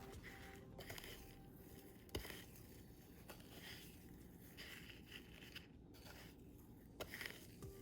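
Faint scraping and crumbly rustling of breadcrumbs as potato balls are rolled in the crumb coating, with a couple of light knocks.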